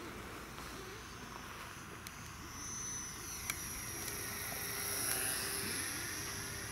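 Small electric motor and propeller of an XK A500 mini Corsair RC plane whining in flight, its pitch bending up and down as it passes, growing louder about two-thirds of the way in.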